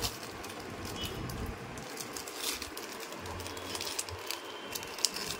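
Plastic biscuit packet crinkling and crackling in irregular bursts as it is handled and a rabbit pushes its head into it.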